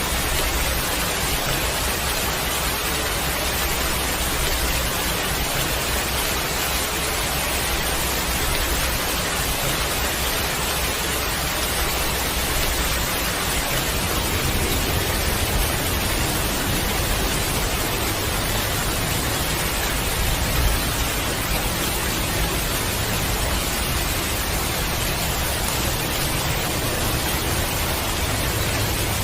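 Heavy rain falling steadily, a dense even hiss, with a low rumble underneath that grows stronger about halfway through.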